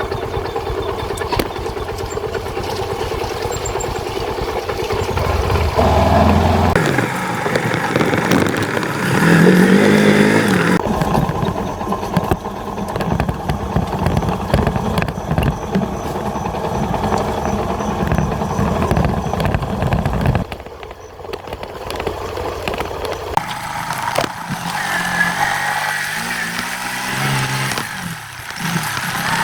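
Motorcycle engine running under load on a steep path, its pitch rising and falling as it is revved, with a brief drop in the sound about two-thirds of the way through.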